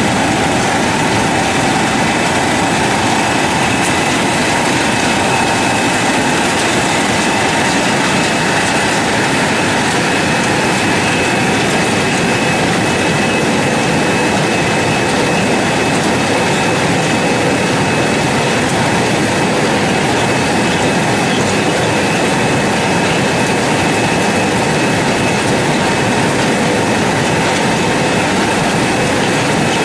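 Air-bubble vegetable washing machine running: a steady, loud churning and rushing noise from the blower and bubbling water tank, with a thin steady whine over it.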